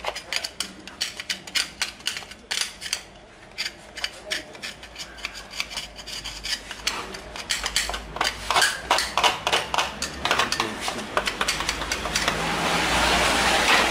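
Metal hand tool scraping and picking at old gasket and coolant residue on the water-pump seat of a VW/Audi diesel engine block, in quick irregular strokes that clink against the metal. Near the end a steady rushing noise swells over it.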